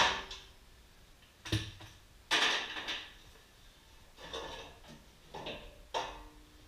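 Chrome front bumper of a 1996 Chevy Silverado being worked free of its mounts by hand: a loud metal clunk at the start, then a knock, a longer scrape and a few lighter clunks, the last one ringing briefly.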